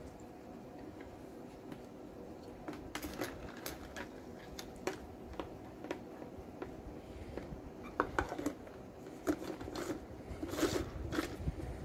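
Eating sounds of a person having a meal of lo mein noodles: chewing, with scattered small clicks and taps of chopsticks and tableware. The clicks come irregularly and grow busier over the last few seconds.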